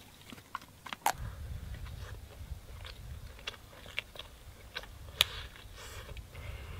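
Biting and chewing roasted rabbit meat, with scattered crisp crunches and clicks. A low steady rumble comes in about a second in.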